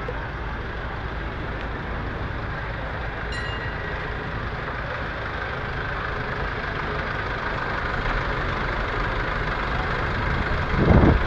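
Mercedes-Benz Sprinter van's diesel engine idling while parked, a steady low hum that grows louder as the microphone comes up to the front of the van. A brief louder low rumble near the end.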